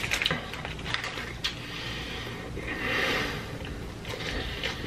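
A man chewing a large mouthful of cheeseburger close to the microphone: wet smacking and clicking mouth sounds, thickest at the start and again about a second and a half in.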